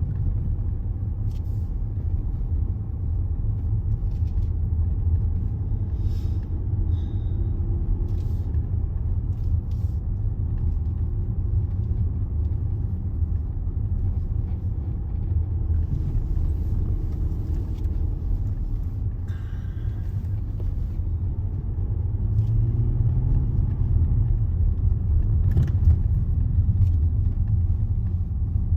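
Steady low rumble of engine and road noise inside a Range Rover's cabin while driving, with a few faint clicks and knocks and a slight rise in engine pitch about three-quarters of the way through.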